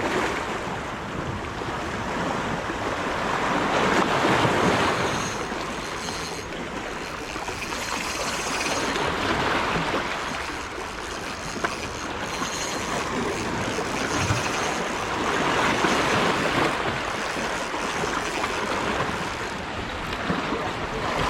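Sea waves washing and surging, swelling and fading every few seconds.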